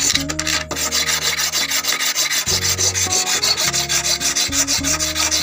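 A flat hand file scraping back and forth in quick, even strokes, several a second, across a steel sewing machine feed dog held in a vise, filing its worn sides down level.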